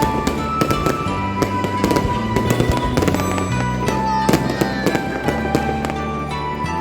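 Fireworks bursting and crackling in quick succession, many sharp cracks, over music with held bass notes and a simple melody.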